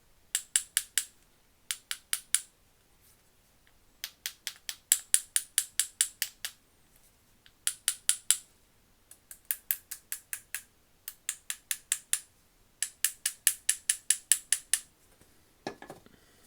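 Quick runs of sharp metal-on-metal clicks on an old Craftsman 3/8-inch ratchet, about six or seven a second, each run lasting about a second with short pauses between.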